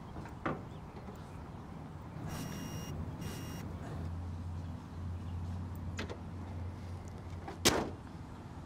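Handling noises: a knock, then two short electronic beeps about two and a half seconds in, a low steady hum through the middle, and a sharp thump near the end.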